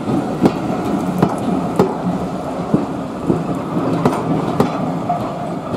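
Railway coaches rolling slowly past, their wheels clicking over the rail joints in regular pairs, about one pair every second and a half, over a steady rumble.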